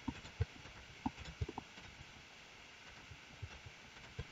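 Faint clicks of a computer mouse and keyboard: a few scattered taps in the first second and a half, then quiet hiss, then two more clicks near the end.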